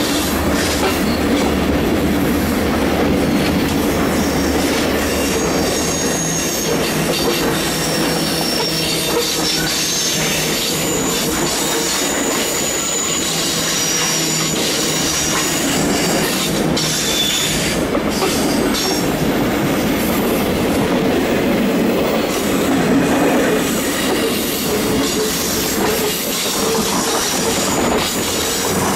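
Rocky Mountaineer passenger coaches rolling past on curving track: a steady rumble of steel wheels on rail with clicks over the rail joints and thin, high-pitched wheel squeals that come and go. A low drone fades out within the first several seconds.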